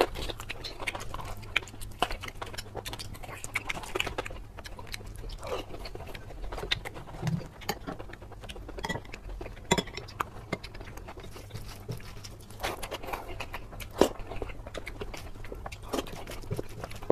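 Close-miked eating of mutton curry: wet chewing, biting and lip-smacking as meat from a mutton leg and rice with gravy are eaten by hand, heard as a run of irregular short smacks and clicks.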